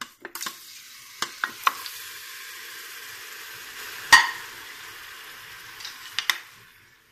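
Chunks of raw beef sizzling as they go into hot oil in a stainless steel pot: a steady frying hiss that fades away near the end. A few clicks and knocks against the pot come through it, the loudest about four seconds in.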